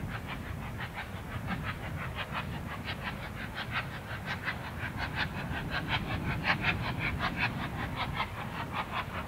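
Steam locomotive working a train, its exhaust beats coming evenly at about five a second over a low rumble and growing louder toward the middle.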